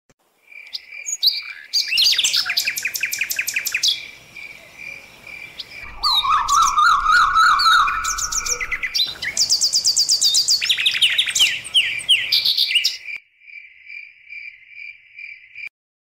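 A recording of mixed birdsong: several birds chirping, trilling and whistling over one another, over a steady pulsing call repeated about three times a second. It thins out near the end and stops abruptly.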